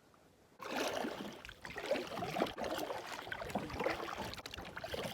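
Water splashing and sloshing against a kayak, starting abruptly about half a second in as an irregular crackle of small splashes.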